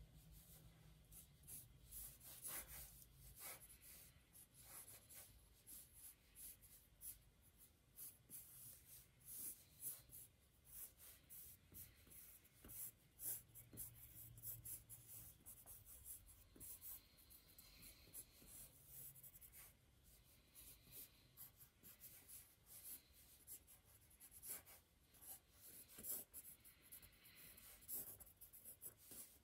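Faint pencil scratching on paper in many quick, irregular sketching strokes.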